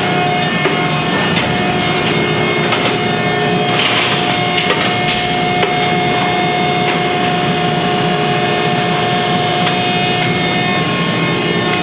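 Harris HRB-1C baler running while it processes cardboard: a steady machine whine over crunching and scraping, with a few scattered knocks.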